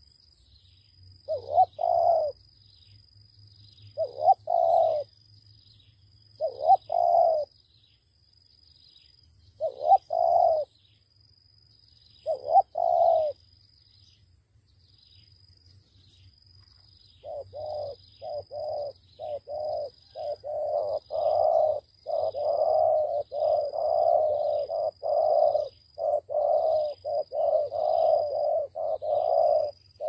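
Spotted doves cooing. In the first half there are five separate phrases of two or three notes each, a few seconds apart; from a bit past halfway the coos come fast and almost without a break. A high, thin chirp repeats about twice a second throughout.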